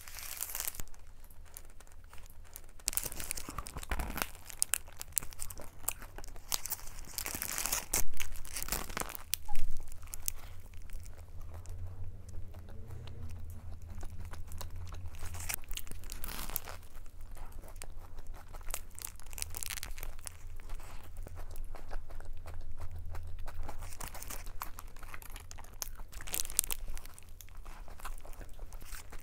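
Paper sandwich wrapper crinkling and tearing as a Subway sandwich is unwrapped, loudest about eight and nine and a half seconds in. Then come bites into the rotisserie chicken sandwich with its fresh vegetables, and chewing mixed with more rustling of the wrapper.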